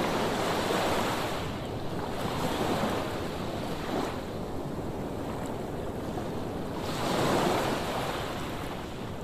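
Sea waves washing onto a sandy beach, swelling and falling back, with two louder surges near the start and about seven seconds in. Wind buffets the microphone underneath.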